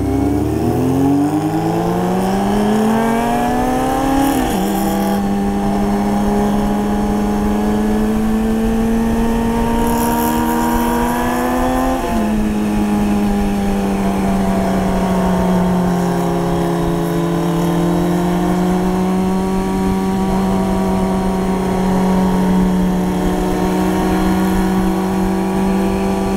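Sportbike engine on the move, pulling hard with its pitch rising, shifting up about four seconds in and again about twelve seconds in, then holding a steady cruise, with wind rush over the rider's microphone.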